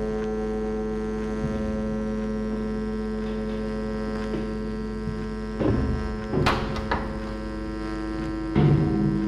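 Steady electrical hum with many even tones stacked together, broken in the second half by several sharp knocks, the loudest near the end.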